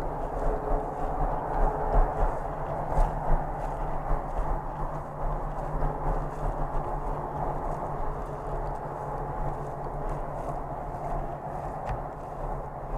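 Walking through dry grass, footsteps and clothing rustle, over a steady low rumble.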